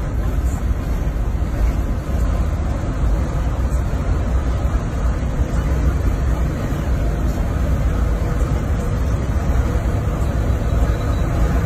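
Heavy trucks' V8 engines pulling under load uphill, a low, steady rumble mixed with tyre and road noise, heard from inside a truck cab as an old Iveco Turbostar 190.48 with a tuned V8 draws alongside.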